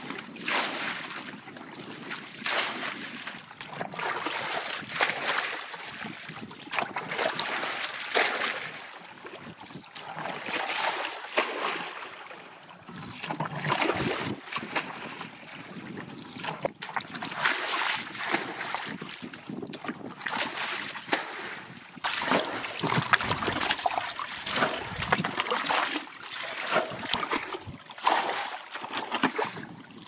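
Muddy water scooped up with a plastic bucket and thrown out of a ditch, making repeated splashes about one every second or two. The ditch is being bailed out so the fish can be caught by hand.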